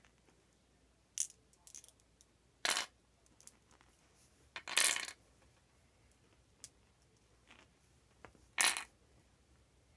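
Flat glass mancala stones clinking as small handfuls are dropped into the pits of a dark wooden mancala board: a few light clicks, then three short, louder clatters about two to four seconds apart.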